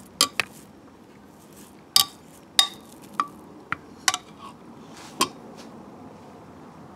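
Wire potato masher mashing chickpeas in a ceramic baking dish, its metal clinking against the dish: about nine irregular knocks over the first five seconds, some with a short ring.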